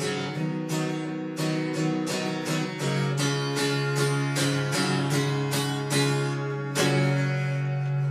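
Acoustic guitar strummed in a steady rhythm through a song's instrumental ending. About seven seconds in, a final chord is struck and left to ring.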